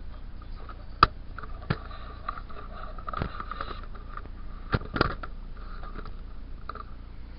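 Wind buffeting the microphone in a steady low rumble, with five sharp knocks; the loudest comes about a second in.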